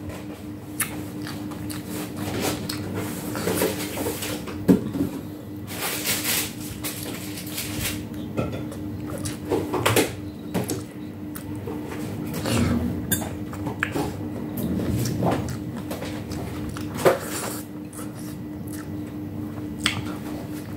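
Eating by hand: chewing and mouth sounds, with scattered short clicks and knocks of fingers and food against the plate and a glass dipping bowl.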